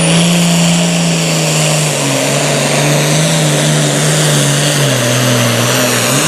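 Super Farm class pulling tractor's turbocharged diesel engine running hard under load. Its note holds steady at first, then wavers and sags from about two seconds in, dropping most around five seconds in, as the sled loads it down.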